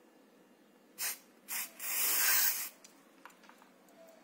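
Aerosol can of 3-in-One multi-purpose oil spraying into a stroller's front-wheel swivel housing: two short puffs, then a longer hiss of about a second, oiling the swivel so the wheel stops sticking.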